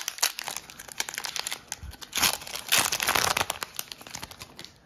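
Foil wrapper of a Pokémon trading card booster pack crinkling and tearing as it is ripped open by hand, with the loudest rush of crackling about two to three and a half seconds in, dying away near the end.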